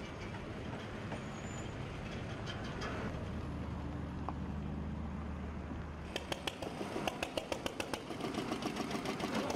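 Engine running steadily, then from about six seconds in a rapid, uneven knocking clatter from the engine of a small vehicle carrying a load of concrete blocks.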